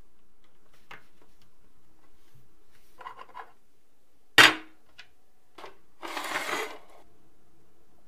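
Small chromed metal calendar parts handled on a wooden tabletop: a few light taps, then one sharp metallic clack about halfway through, followed a couple of seconds later by a brief scraping rattle.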